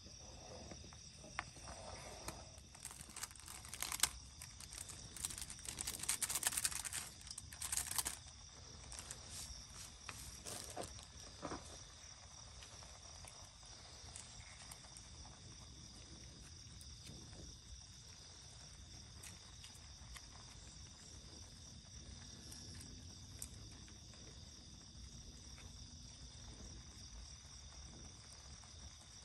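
Crickets chirring steadily, with a run of crinkling and tearing plastic a few seconds in as instant-noodle seasoning sachets are torn open.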